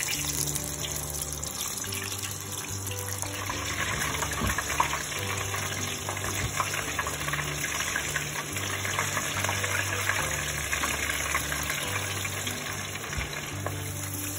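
Battered frog legs deep-frying in peanut oil at just over 400 degrees in a cast-iron Dutch oven: a steady crackling sizzle. Background music with a low bass line runs underneath.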